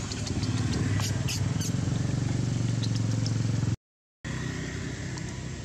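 A low, steady motor rumble, like a vehicle engine running, with a few faint clicks about a second in; the sound cuts out completely for about half a second a little past the middle.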